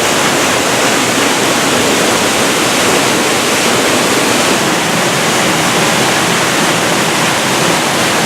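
Loud, steady rush of falling water from the Spouting Rock waterfall, close up.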